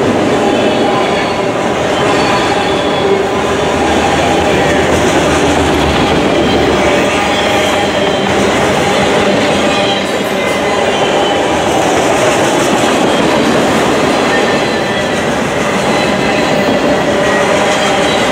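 Autorack freight cars rolling past at close range: a loud, steady rumble and rattle of steel wheels on the rails, with thin, steady high squealing tones over it.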